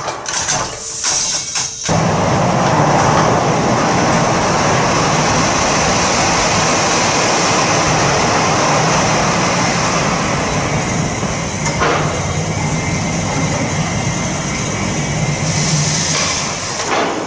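Electric drive of a monorail hay crane running steadily as its trolley carries a grab full of hay along the overhead rail: a steady hum with hiss. There are a few clicks and knocks in the first two seconds, and the sound shifts near the end as the hay is lowered.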